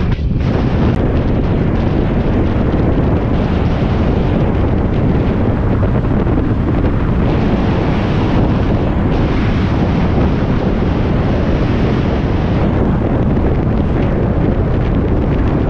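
Loud, steady wind rush on the microphone of a motorcycle riding at highway speed, with the bike's running noise blended in underneath.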